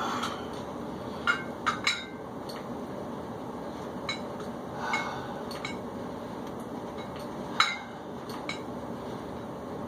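Metal dumbbells clinking and rattling through a set of chest flyes: scattered sharp clinks, the loudest about three quarters of the way through as the two weights meet overhead.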